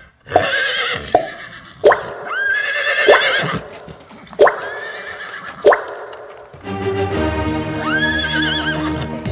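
A run of horse whinnies, one about every second and a half, each a sharp rising squeal that breaks into a shaky, wavering neigh. About two-thirds of the way in, music with steady notes starts and one more whinny sounds over it.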